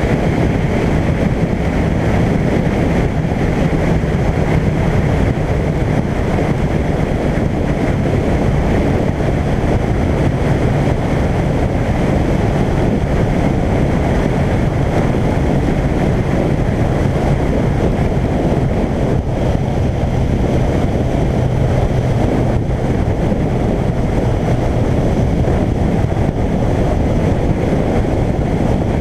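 Suzuki GSX1400 inline-four engine running at a steady road cruise under a loud, constant rush of wind on the microphone.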